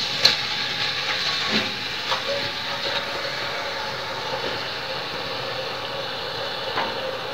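Onion paste frying in hot oil in a metal pot, a steady sizzle. A spoon knocks and scrapes against the pot a few times in the first two seconds or so while it is stirred. The watery paste is cooking down in the oil.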